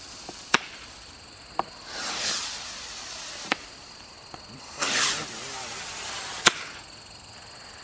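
Link Triad 6 oz Fire Dragon sky rocket going off in flight: a loud sharp bang about half a second in, smaller pops after it, two rushing hisses in the middle, and another loud bang near the end.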